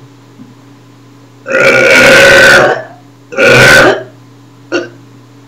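A person burping deliberately and loudly: one long burp of over a second, then a shorter one, followed by a brief short sound near the end.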